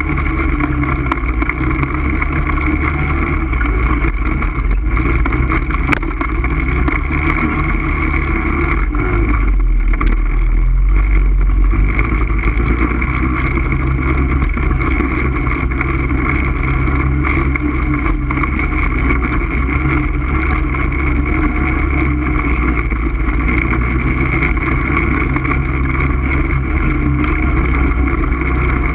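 ATV engine running steadily while under way, with a heavy low rumble; about nine seconds in the engine note drops away briefly while the low rumble swells, then it picks up again.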